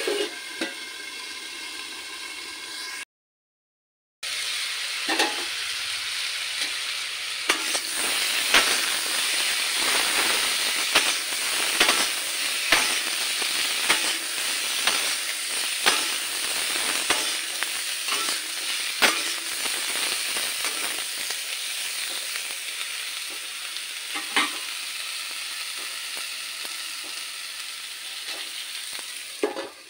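Cauliflower and potato pieces sizzling as they fry in oil in a kadai, with a metal spatula scraping and knocking against the pan as they are stirred. The sound cuts out completely for about a second, about three seconds in.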